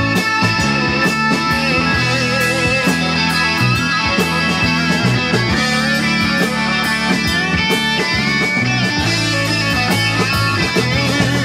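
Live rock band playing an instrumental passage: an electric guitar lead with wavering, bent notes over bass and drums.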